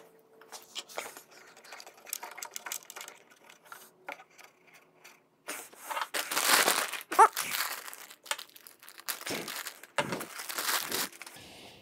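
Plastic packaging bag crinkling and rustling in bursts as parts are taken out of it, loudest through the second half, after a few light taps and clicks.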